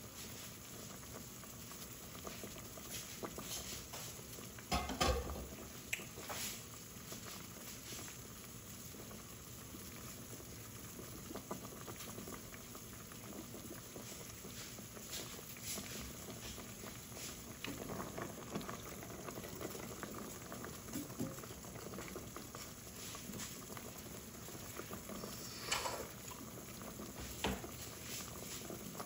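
Fish soup boiling in a lidded stainless steel pot: a steady bubbling hiss dotted with many small pops and ticks. Two louder knocks stand out, about five seconds in and near the end.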